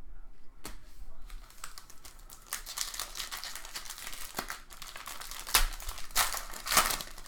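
Trading-card pack wrapper crinkling as it is opened, with scattered clicks of cards being handled. The loudest crackles come about five and a half seconds in and again near the end.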